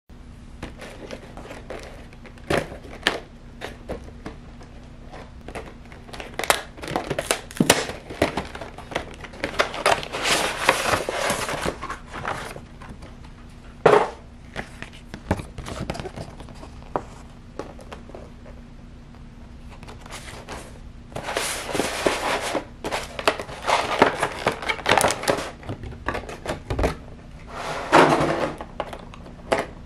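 A cardboard collector's box and its clear plastic blister tray being handled and opened: scattered taps and clicks, with several longer spells of crinkling, rustling plastic and paper.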